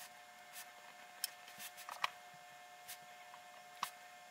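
Kolrosing knife scoring fine lines into a carved wooden spoon: short, irregular ticks from the blade cutting the wood, the sharpest about a second in, two seconds in and near the end. A faint steady hum runs underneath.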